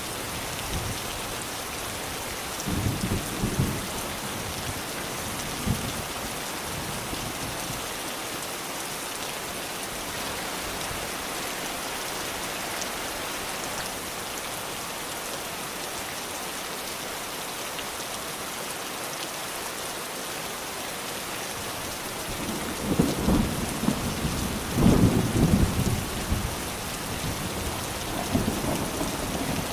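Steady rain hissing, with low rolls of thunder: short ones about three and six seconds in, and a longer, louder spell of rumbling near the end.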